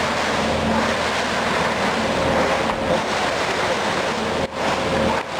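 Steady, loud running noise of a Finn-Power TP 3015 CNC turret punch press at work, with its sheet clamp carriage moving and no distinct punch strikes standing out. The sound briefly cuts out twice near the end.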